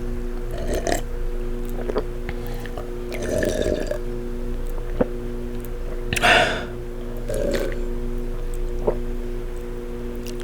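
Close-up burping and wet gulping after chugging fizzy soda: several short sounds a second or two apart, the loudest about six seconds in, over a steady low hum.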